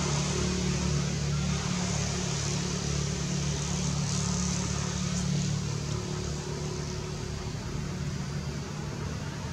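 Steady low motor hum under a constant hiss, easing slightly about two-thirds of the way through.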